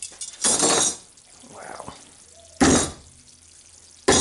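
Claw hammer blows on gummy candy frozen rock hard and brittle, lying on wooden deck boards. There are three sudden strikes: about half a second in, past the middle, and at the very end.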